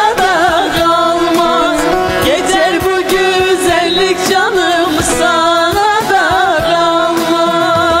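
Women singing a Turkish folk song (türkü) over instrumental backing, the melody heavily ornamented with wavering, bending turns.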